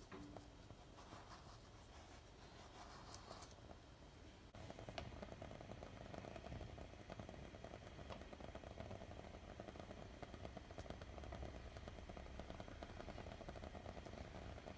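Faint kitchen sounds: light rustling as granulated sugar is poured into a steel pot of simmering milk. About four seconds in, this gives way to a steady faint whir with a low rumble while the milk boils on the gas stove.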